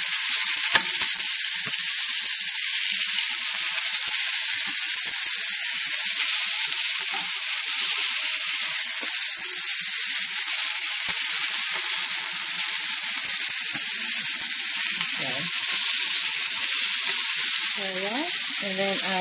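Thin seasoned ribeye steaks sizzling steadily on a hot, oiled grill pan as they sear. A couple of sharp clicks about a second in.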